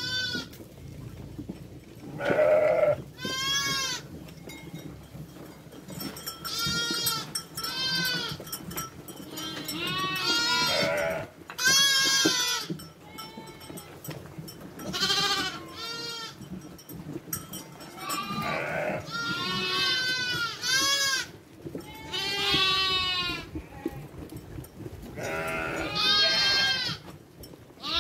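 Flock of sheep bleating: a steady run of calls, many overlapping, some of them high-pitched.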